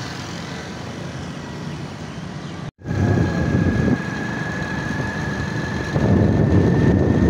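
Steady road traffic noise for the first few seconds. After a sudden cut, a small motorcycle is being ridden, its engine running under louder, gusty wind noise on the microphone.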